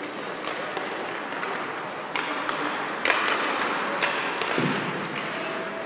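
Hockey sticks clacking sharply on a puck and on each other several times in quick succession about two to four seconds in, over a steady hiss of skates on ice, with a duller thud a moment later.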